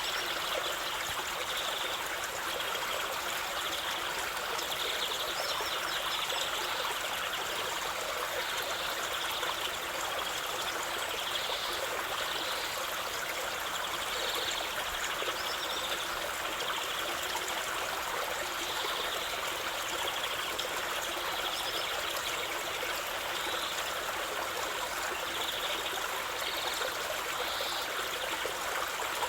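Stream water flowing and trickling steadily over stones, an even unbroken rush.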